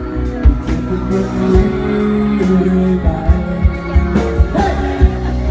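Live acoustic band music: strummed acoustic guitars, keyboard and conga hand drums with a singer's voice, the drum hits standing out as the loudest beats.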